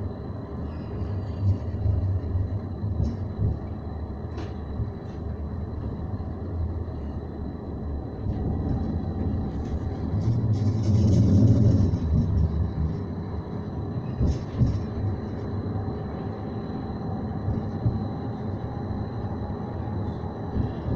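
CAF Urbos 3 tram in motion, heard from inside the passenger car: a steady low rumble with a faint high whine and a few light clicks, swelling louder for a couple of seconds around ten seconds in.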